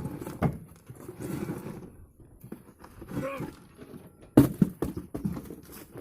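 Metal clanks and knocks from hand tools working on a backhoe's front tyre and wheel, with one sharp, loud strike about four and a half seconds in and a few lighter knocks after it.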